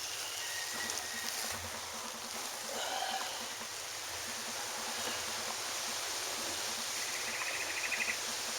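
Steady hissing background noise, with a short, rapid chirping trill near the end.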